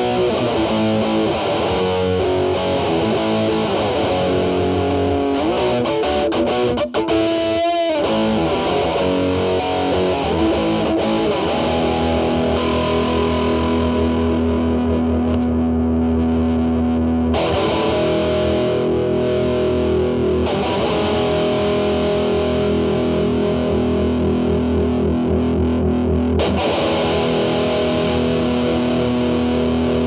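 Electric guitar with humbucking pickups (a Gibson SG) played through metal distortion pedals into a Marshall Valvestate amp's clean channel: held chords and single notes with a distorted edge. The guitar's volume is rolled back to clean up the distortion. About halfway through, the Boss MT-2 Metal Zone's distortion knob is reset, and the tone changes.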